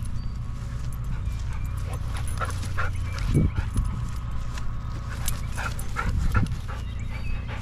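A dog making a few short, high-pitched vocal sounds, about two and a half seconds in and again near six seconds, over a steady low rumble. Two low thumps come about three and a half and six seconds in.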